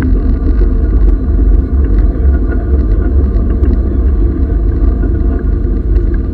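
Historic steam train running, heard from on board: a steady, heavy low rumble with occasional light clicks.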